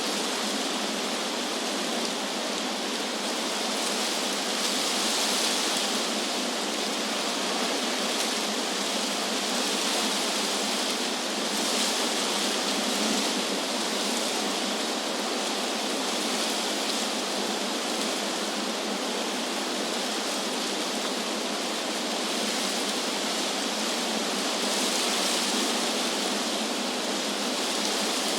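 Wind blowing through trees: a steady rush of moving leaves that swells and eases a few times.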